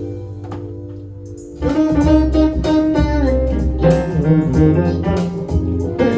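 Instrumental music with no singing. A held chord fades away, then about a second and a half in a louder melodic phrase comes in over a bass line.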